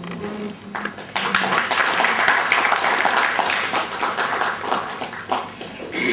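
Applause, many hands clapping at once, starting about a second in and dying away near the end.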